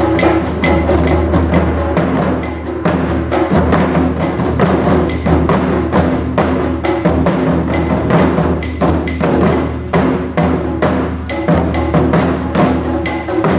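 Modern-style music built on Japanese taiko drums, with rapid, dense drum strokes over a steady low bass tone and no shouted drummers' calls.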